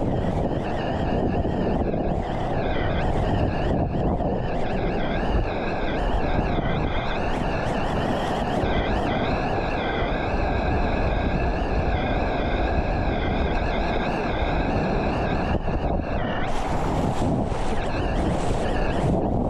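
Whitewater rushing and churning around a sit-on-top kayak as it runs a rapid, a steady roar of water with wind buffeting the microphone.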